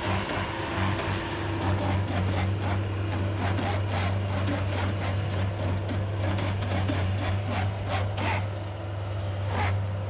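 Bobcat S185 skid-steer's diesel engine running steadily under load while the homemade bale shredder's hydraulically driven rotors with sickle sections tear through a bedding bale, a continuous rough scraping and rasping over the engine hum.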